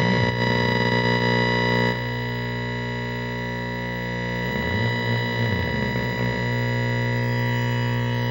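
Vintage 1949 Philco 50T-1403 television's speaker putting out a loud, steady, distorted buzz with many overtones while its front knobs are turned. A low tone in it rises and falls back in pitch about halfway through.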